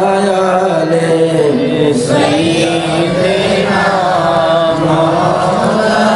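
A man's voice chanting an Arabic devotional verse in praise of the Prophet, in long held notes that slide slowly up and down in pitch.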